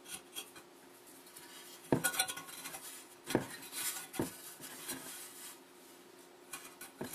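Light metallic clinks and taps with faint rustling as a nylon starter rope is knotted at a lawnmower's recoil starter pulley, a screwdriver wedged through to hold it. A few sharper clicks stand out about two, three and a half and four seconds in.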